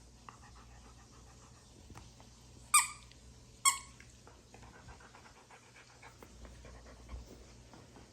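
A squeaky dog toy squeaked twice, short and high-pitched, a little under a second apart about three seconds in, as a chocolate Labrador retriever plays with it; the dog pants quietly through the rest.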